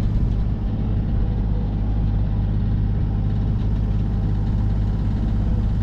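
Sailing yacht's inboard engine running steadily under way, a low, even drone.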